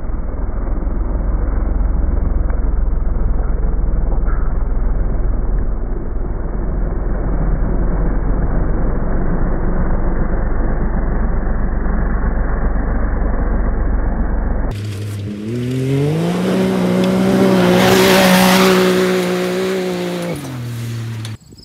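Deep, muffled, slowed-down rumble of a Can-Am Maverick X3 side-by-side throwing dirt. About 15 s in, the X3's turbocharged three-cylinder engine is heard at normal speed, revving up and holding a high note as the machine runs along the dirt track with a spray of dirt, then dropping off near the end.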